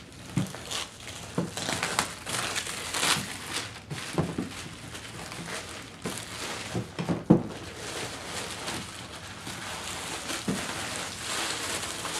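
Plastic shrink wrap crinkling and tearing as it is pulled off a cardboard model-kit box, with a few sharp knocks from the box being handled; the loudest knock comes about seven seconds in.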